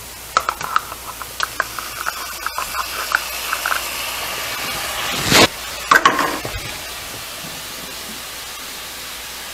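Butter melting and sizzling in a hot skillet: a steady hiss, with light ticks and crackles in the first few seconds. About halfway through comes a brief louder burst and a clatter.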